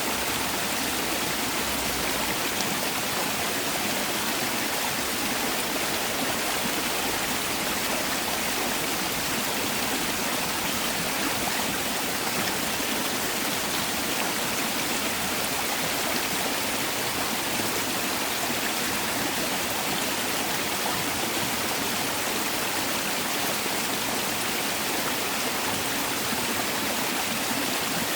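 Mountain valley stream rushing and splashing over rocks: a steady, unbroken water noise.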